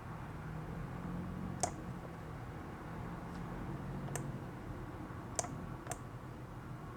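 About five sharp computer mouse clicks, irregularly spaced, over a faint steady room hum, as a PowerPoint slide is edited.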